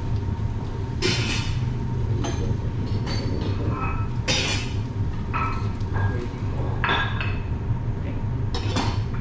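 Cookware and dishes clinking and knocking now and then, about six short knocks, some with a brief ring, over a steady low hum.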